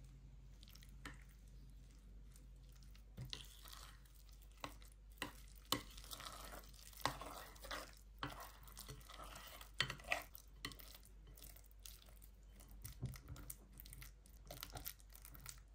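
Metal teaspoon stirring and mashing cottage cheese in a glass bowl: from about three seconds in, irregular clinks and scrapes of the spoon against the glass.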